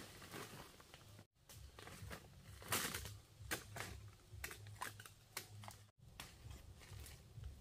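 Bush knife cutting and shaving at a wooden stick: a run of irregular sharp cuts and scrapes, the loudest about three seconds in.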